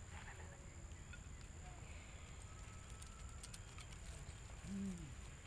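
Quiet outdoor background with a low rumble and a faint steady high whine, and one short grunt falling in pitch near the end.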